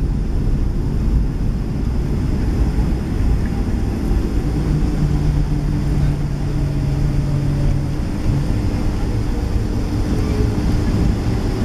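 Cabin noise inside a Boeing 757-200 rolling down the runway after touchdown: a steady, loud low rumble of engines, wheels and air rush past the fuselage. A hum joins about four to five seconds in.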